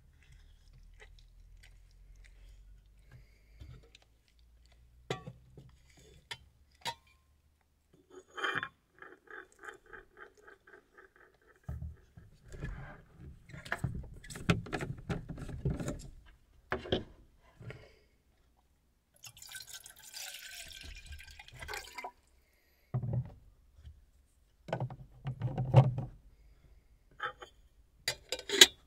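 Water poured from a plastic bottle into a small metal camping kettle, among light clicks and knocks of handling, with a clink as the kettle lid goes on near the end.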